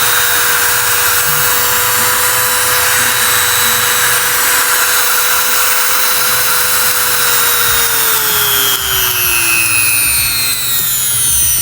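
Oxford rotary tool (mini grinder) running unloaded at its top speed setting, a steady high whine. About seven seconds in the motor winds down, the whine sliding lower in pitch.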